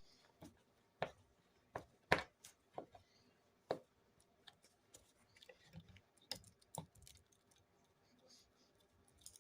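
Irregular light clicks and taps of a hand screwdriver turning a screw by hand, about a dozen sharp clicks at uneven intervals.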